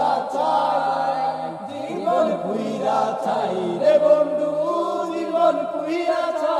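Bengali song playing, a voice holding long, gliding notes over the music.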